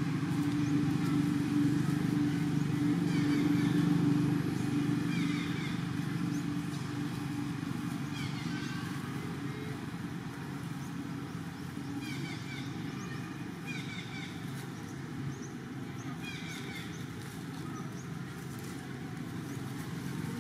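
Low engine hum, loudest for the first four seconds and then easing off, with short high chirps every few seconds.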